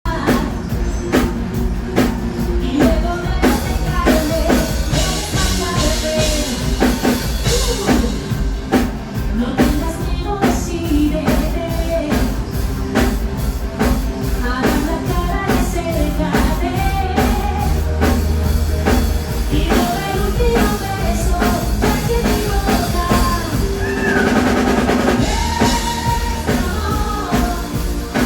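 Pop-rock song with a steady drum-kit beat and a sung vocal melody.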